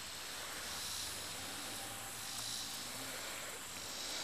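Steady outdoor background hiss with faint high-pitched swells every second or so.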